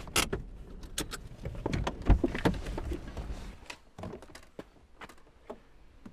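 Clicks and knocks of a Volkswagen car's door and fittings being handled as someone gets out, with one loud thump about two seconds in. A low hum under them drops away about four seconds in, leaving a few faint clicks.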